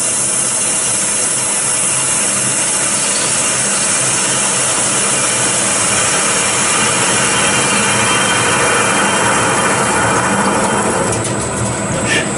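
CK0640A mini CNC lathe turning a small metal workpiece under a stream of coolant: the spindle and cutting tool make a steady, even machining noise. Near the end it dips briefly, with a few sharp clicks.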